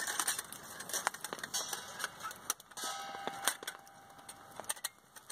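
Thin metal plates of a hinged folding pocket stove clicking and clinking as they are fitted together, with a short metallic ring about three seconds in.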